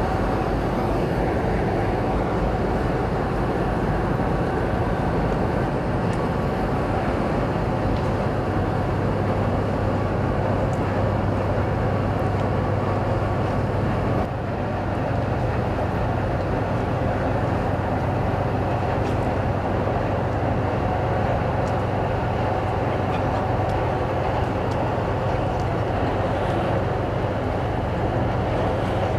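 Riverboat diesel engine running steadily: a constant low drone with a hum, unchanging throughout.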